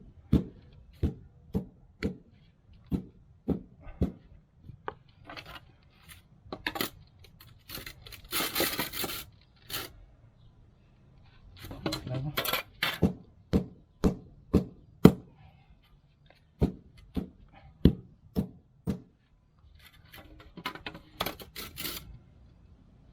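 Masonry hand work on a bluestone stair tread: a run of sharp knocks and taps, about one or two a second, with a few longer scraping stretches about a third of the way in, around the middle and near the end.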